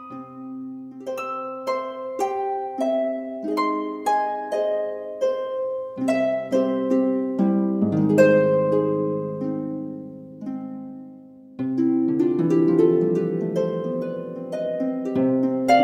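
Instrumental music: a steady stream of plucked notes over held low notes. It fades briefly about eleven seconds in, then comes back fuller and louder.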